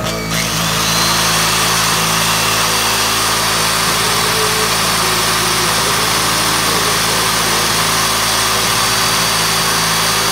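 Electric motors of a home-built generator rig running steadily, with a low hum throughout and a loud whirring hiss that comes up about half a second in and holds.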